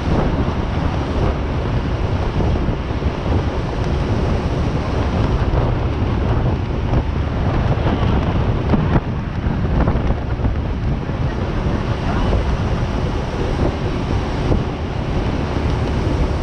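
Heavy wind buffeting the microphone, a loud, steady low rumble with no clear tones or rhythm.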